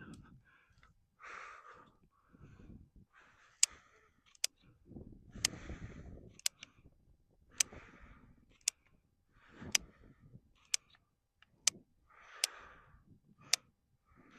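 A series of sharp, short clicks about once a second, with softer rustling and handling noise between them.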